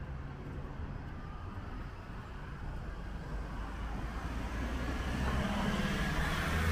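City street traffic: a steady low vehicle rumble, with an engine growing louder near the end as a vehicle comes closer.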